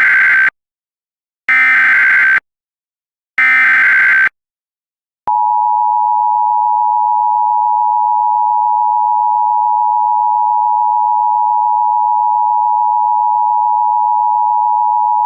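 Emergency Alert System SAME header: three short bursts of digital data screech, the first already under way, each about a second long and a second apart. About a second after the last burst, a steady EAS attention tone starts and holds for about ten seconds, signalling that an emergency alert message follows.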